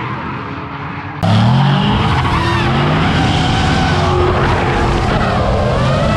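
A drift car engine at a distance, then about a second in a sudden jump to close range: Ford Mustang drift cars in tandem, engine revving and rising in pitch, and tyres squealing in wavering tones as they slide.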